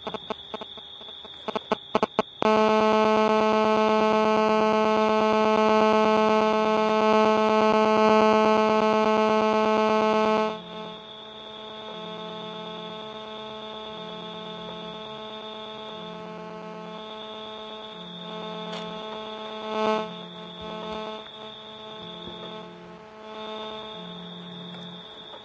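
Electronic buzzing from a phone-signal detector set off by a mobile phone: a run of rapid clicks, then a loud steady buzz about eight seconds long that cuts off abruptly. After it, a faint steady high tone and a low beep that repeats every second or so.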